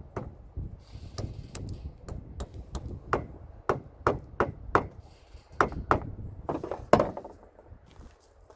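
A series of about fifteen sharp clicks and knocks, spaced unevenly over about seven seconds, from hand work on the new AC compressor's mounting hardware as a spacer is fitted. The last few are the loudest and ring briefly.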